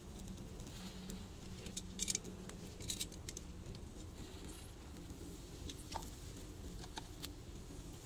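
Skewered barbecue meat cooking over glowing charcoal, with a soft sizzle and a few sharp crackles and pops from fat dripping onto the coals, the loudest about two and three seconds in. A steady low hum runs underneath.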